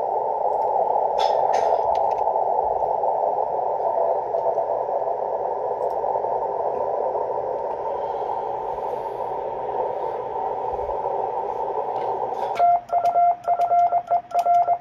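Amateur radio transceiver's receiver hiss, a steady band of static, for most of the time; about twelve and a half seconds in, loud Morse code (CW) beeps at one steady pitch start keying on and off.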